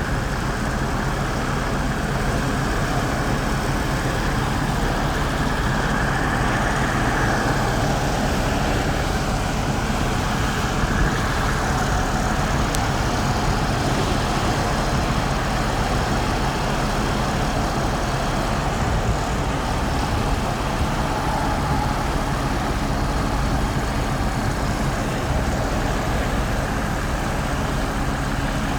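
A crane's engine running steadily under load, a constant low hum.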